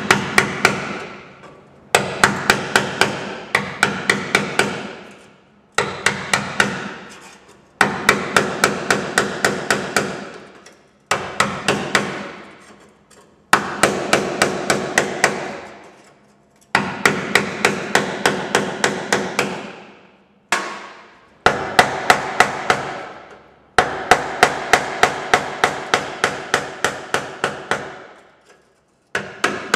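Hammer driving a gasket scraper ground to a sharp edge, used as a chisel to cut the rusted outer sheet-steel panel off an HK Holden fender. Runs of sharp metallic taps, about four a second, in bursts of two to four seconds with short pauses, each tap ringing through the panel.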